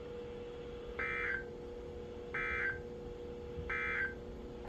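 Emergency Alert System end-of-message (EOM) signal: three short bursts of warbling digital data tones about a second and a half apart, marking the end of the tornado warning broadcast. A faint steady low tone runs underneath.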